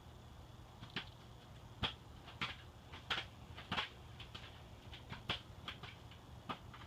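Hunter 1886 ceiling fan running at high speed: a steady low hum from the motor in its cast iron housing, with irregular light clicks or ticks over it.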